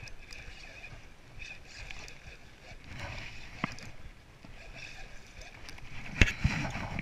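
Knocks on a small fishing boat over a faint background: a light tap a little before four seconds in and a sharper, louder knock about six seconds in.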